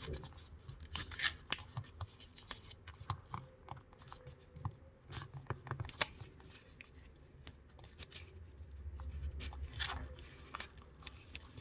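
A sheet of paper being folded and creased by hand: scattered soft crinkles, rustles and short scrapes as the paper is lined up and pressed down flat.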